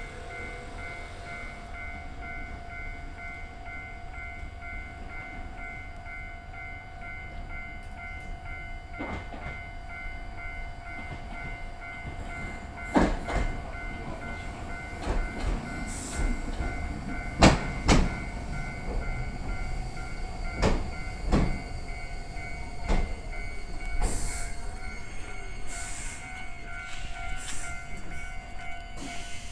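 A rail vehicle with a steady hum, its wheels knocking sharply and irregularly over rail joints from about halfway through.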